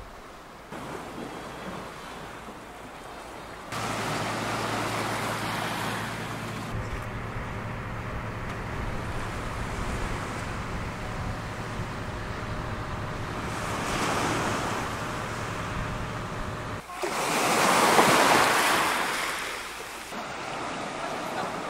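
Sea waves washing onto a pebble beach, rising and falling in surges, with the loudest surge about three-quarters of the way through. The sound changes abruptly a few times.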